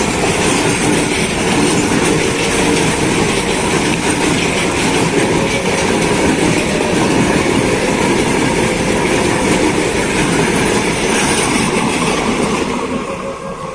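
Train running past close by, loud and steady, fading away near the end.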